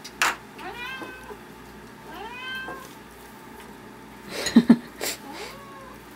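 Domestic cat meowing: three drawn-out meows, each rising and then falling in pitch. A few sharp knocks fall between them, the loudest a quick double knock about four and a half seconds in.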